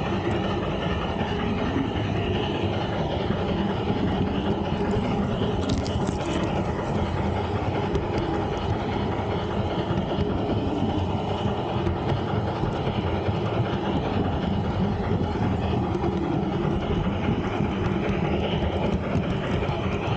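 LGB G-scale model train running steadily along its garden-railway track, heard close up from a camera riding on the train: an even rumble of wheels on rail and the drive.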